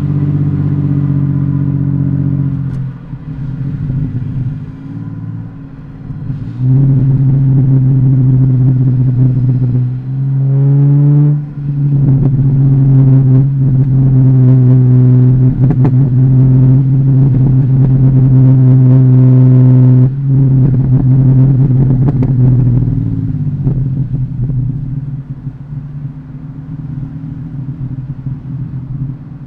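Ford FG Falcon XR6's 4.0-litre straight-six running through an aftermarket exhaust while driving: a loud, steady exhaust drone under throttle, a rising rev about ten seconds in, and a sudden drop in loudness about twenty seconds in as the throttle comes off. The engine then runs quieter.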